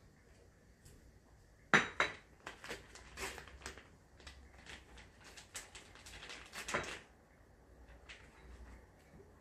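Dishes and cutlery clinking and knocking on a table: one sharp knock about two seconds in, then a run of uneven taps and clinks for about five seconds.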